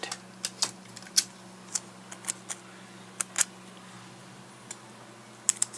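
Scattered light clicks and ticks, about ten over several seconds, from handling a piece of tape and small parts of the GPS, over a faint steady hum.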